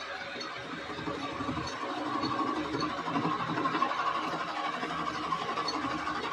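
Metal lathe running, its four-jaw chuck spinning: a steady mechanical whir with a faint high tone, growing a little louder over the first few seconds.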